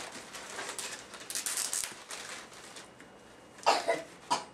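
Wrapping paper rustling and tearing as a present is unwrapped by hand, busiest about a second and a half in. Near the end there is a short voiced exclamation.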